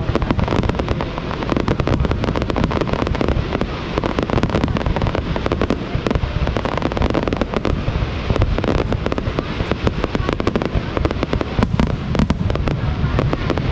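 Fireworks display: a dense, continuous barrage of bangs and crackling bursts, one right after another without a pause.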